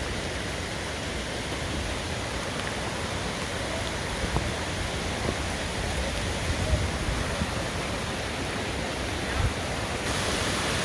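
Ithaca Falls, a large waterfall, gives a steady rushing roar of falling water with an uneven low rumble underneath.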